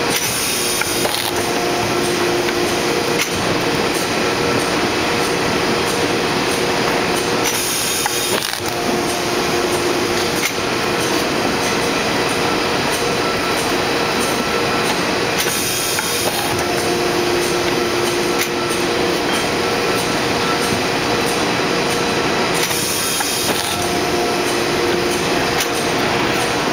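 PHP automatic paper cutter running: loud steady machine noise with a few steady tones under it, and a short hiss that comes back about every seven to eight seconds as the press cycles.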